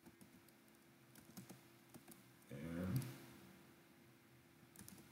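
Faint typing on a computer keyboard, scattered keystroke clicks as a word is typed. A brief low voice sound, like a murmur, comes about halfway through and is louder than the keys.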